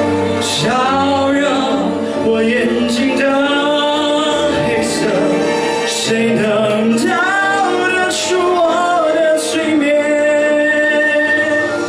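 A man singing a melodic song into a microphone, amplified through the hall's speakers, over musical accompaniment.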